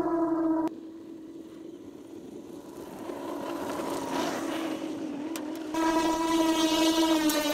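Traxxas UDR RC truck's brushless motor on 6S, geared 55/27, whining at a steady high pitch; it cuts off abruptly about a second in. A quieter stretch of hiss and faint whine follows, and the loud whine returns near the end.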